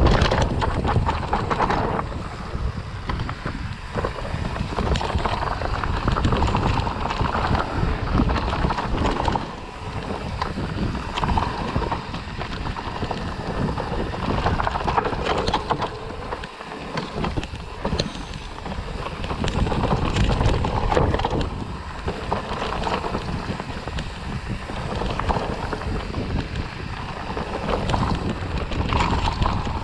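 Wind buffeting the microphone of a camera on a mountain bike riding fast down a dirt forest trail, over a steady low rumble of tyres on the dirt and frequent small knocks and rattles from the bike over roots and bumps.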